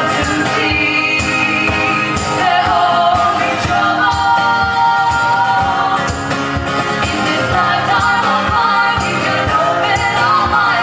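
Live band playing a folk-rock song, with voices singing in harmony over guitar and a steady beat.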